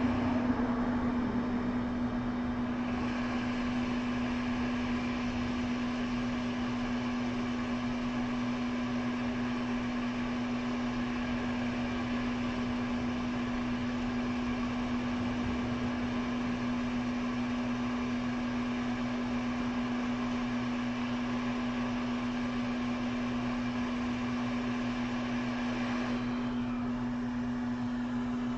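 Small electric fan-driven bench device running steadily: an even airflow hiss under a constant low electrical hum.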